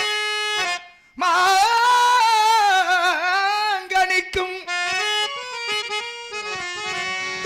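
Harmonium sounding a short held chord, then a man singing a Tamil drama song line in a wavering voice, with the harmonium following in a stepping melody and a few drum strokes.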